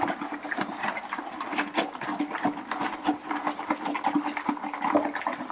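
A Haflinger horse eating feed from a plastic bucket: many quick, irregular crunches and chewing noises as her muzzle works in the bucket.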